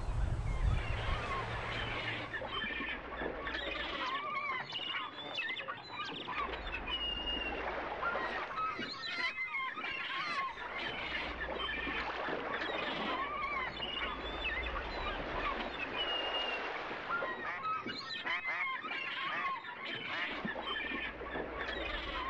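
Many birds calling over one another, a dense run of short calls that rise and fall in pitch, typical of waterfowl at a marsh pond.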